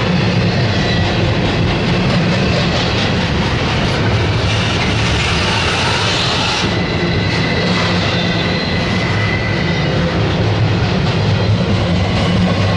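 Double-stack intermodal well cars of a freight train rolling past, a loud, steady noise of steel wheels on the rails.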